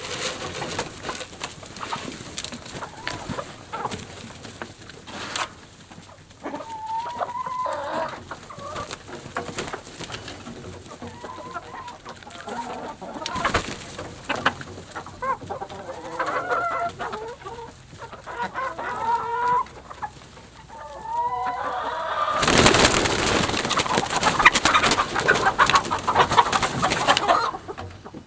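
Chickens clucking and calling in short pitched phrases in a hen house. Near the end comes a loud, noisy scuffle lasting about five seconds.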